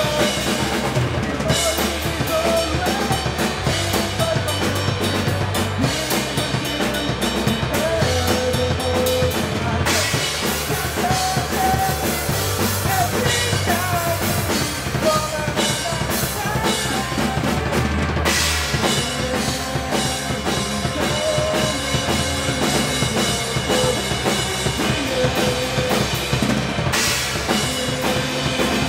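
A rock band playing live, with a drum kit (bass drum and snare) keeping a steady beat under electric guitars.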